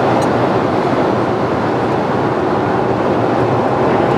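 Steady in-flight cabin drone of a Boeing 767-400ER airliner: an even, constant rush of engine and airflow noise.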